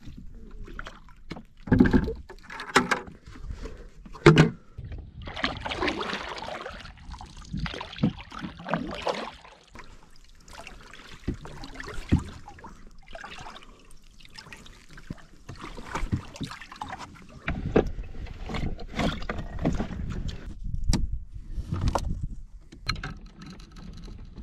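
Water splashing and sloshing against a small skin-on-frame canoe, with irregular sharp knocks of gear and a paddle against the boat, the loudest about two and four seconds in.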